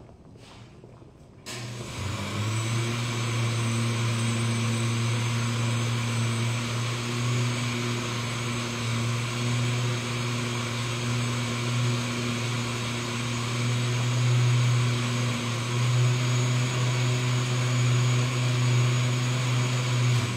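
A motor runs steadily with a low hum and a hiss, starting suddenly about a second and a half in and cutting off abruptly near the end.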